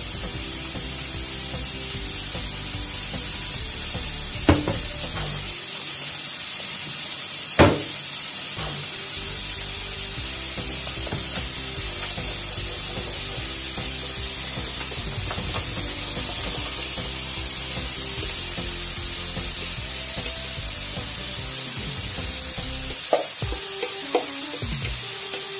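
A steady hiss from a lit gas stove with a frying pan heating on it. A few sharp taps of long chopsticks against a plastic mixing bowl come as its contents are stirred; the loudest tap is about eight seconds in, and two more come near the end.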